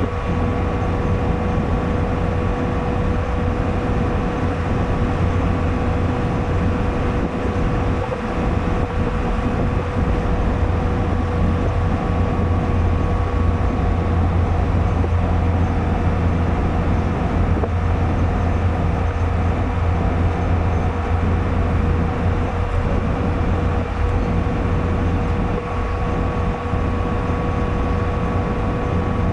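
Car driving at a steady cruising speed, heard from inside the cabin: a constant low engine and tyre rumble with a steady whine running through it.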